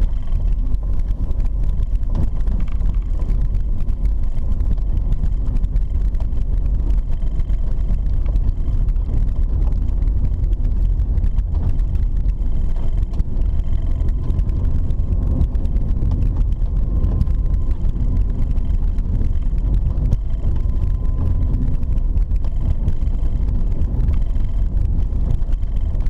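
Car driving along a dirt road, heard from inside the cabin: a steady low rumble of engine and tyres.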